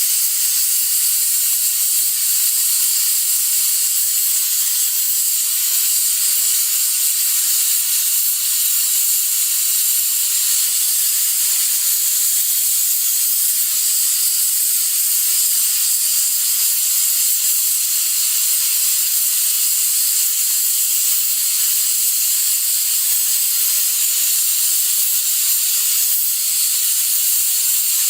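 Pressure cooker venting steam in a steady, high hiss that never breaks or pulses.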